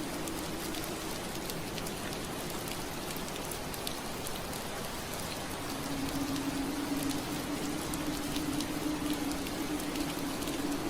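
Steady rain pattering on window glass, many small drops ticking. A low steady hum underneath fades out about a second in and returns a little past halfway, when the rain gets slightly louder.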